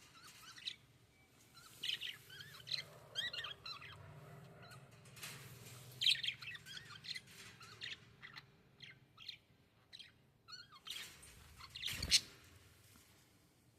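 Small cage birds chirping and twittering in quick runs of short, pitch-bending calls. One sharp knock comes near the end.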